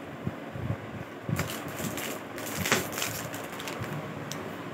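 Clear plastic packaging of a t-shirt crinkling and rustling as it is handled and lifted, in a few crackly bursts, loudest just under three seconds in.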